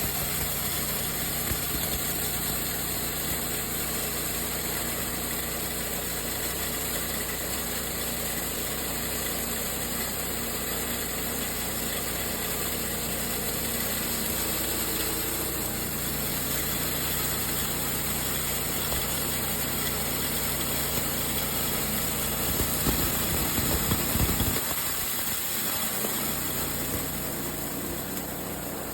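Multifunction grass chopper machine running steadily while grinding corn kernels. The sound grows louder and rougher about three-quarters of the way through, then its low rumble drops away suddenly.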